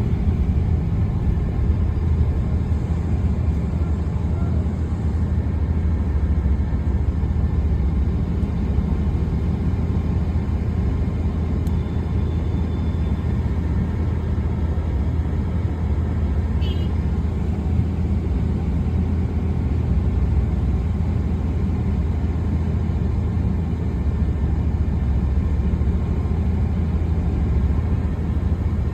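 A steady low rumble that holds at an even level throughout, with no clear events in it.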